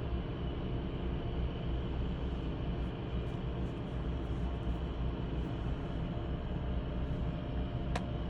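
Steady low engine drone with held machinery tones from a nearby drilling rig, running without a break. A single short click sounds near the end.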